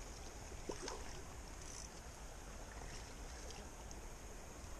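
Steady rush of a shallow creek running over stones, with a low rumble beneath and a few faint ticks about a second in.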